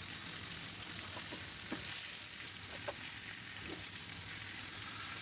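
Marinated chicken pieces frying in a little oil in a kadai: a steady sizzle with a few small pops. The meat is frying dry, with no gravy in the pan.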